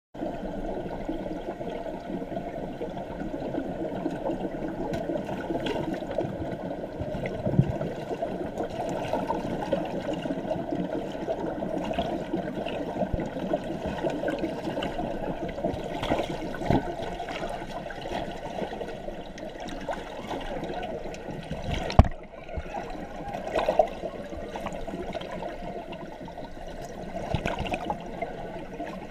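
Muffled, continuous rushing and churning of water in a trout tank, heard from a camera submerged in it, with a few sharp knocks, the loudest about two-thirds of the way through.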